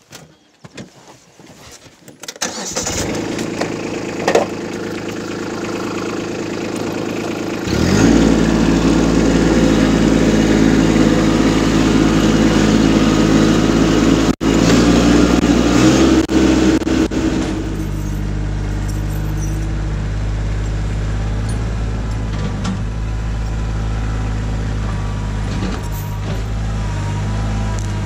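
Kubota B2601 compact tractor's three-cylinder diesel engine starting about two and a half seconds in and running steadily. About eight seconds in it is throttled up and runs louder as the tractor pulls away, then settles to a steadier, lower running sound for the rest.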